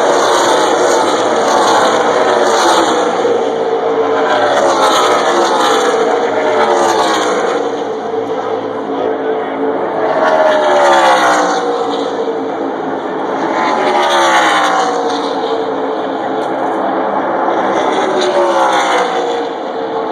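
NASCAR Camping World Truck Series race trucks' V8 engines at full throttle passing one after another, each pass a falling engine note as it goes by, with the pack's engines running on underneath.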